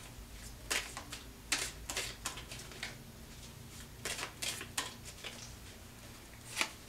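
Tarot cards being shuffled and handled: sharp taps and flicks of card stock coming in short clusters, over a faint low room hum.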